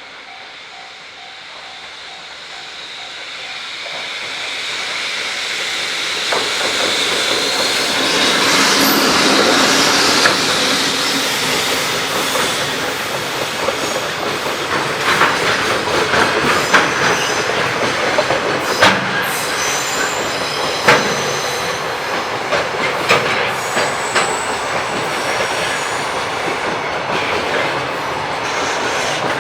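Freight train hauled by a JR Freight EF65 2000-series electric locomotive approaching and passing. The sound builds over the first several seconds and is loudest about a third of the way in. Then the wagons roll by with a run of sharp clicks from wheels crossing rail joints. A level crossing bell rings briefly at the start.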